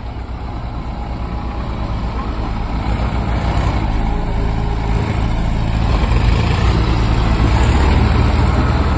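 Tractor's diesel engine running steadily under load as it drives a rotary tiller through flooded paddy mud, growing gradually louder.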